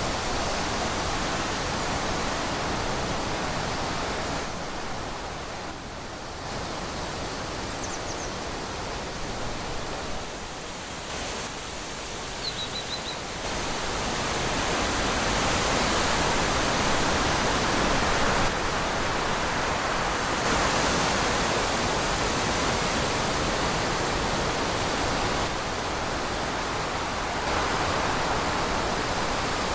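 Wind blowing steadily through trees, swelling and easing in gusts. A few faint high chirps come about 8 and 12 seconds in.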